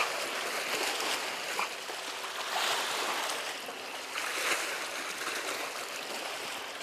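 Small sea waves washing and splashing against the rocks of a seawall: a steady rush of surf that swells a few times.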